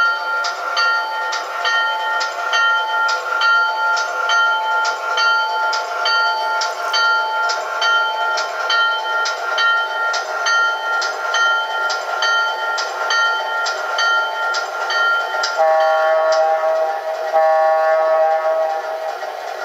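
Model diesel switcher's onboard sound system ringing its locomotive bell, about two strokes a second, as the engine moves off, then two long horn blasts near the end.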